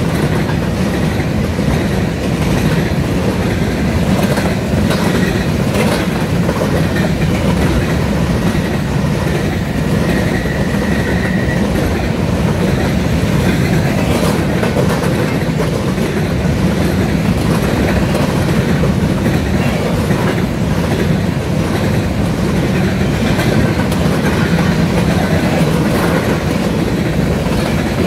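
Empty covered hopper cars of a BNSF unit grain train rolling past close by: a steady, loud rumble with the clickety-clack of wheels over rail joints.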